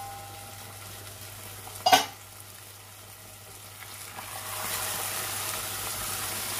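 A metal pot lid clanks down once about two seconds in. Then chicken korma sizzles in oil in a pot as it is stirred with a spatula, the frying growing louder from about halfway; the chicken is at the bhuna stage, fried until the oil separates and it dries.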